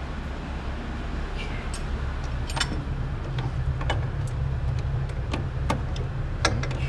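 A steady low mechanical hum, with scattered light metallic clicks and clinks from parts or tools being handled.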